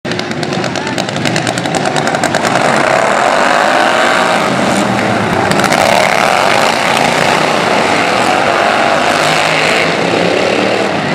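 Several racing lawn mowers' small engines running at high revs around a dirt track, getting louder over the first few seconds. Their pitch swoops as two mowers pass close by about halfway through.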